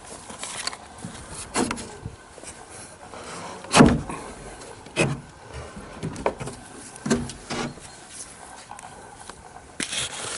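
A string of irregular wooden knocks and clunks, the loudest about four seconds in, as the door of a plank-built smokehouse is unlatched and swung open.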